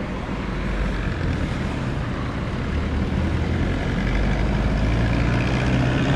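Road traffic and engine noise from riding in city traffic: a steady low engine hum over a rushing haze, growing slightly louder toward the end.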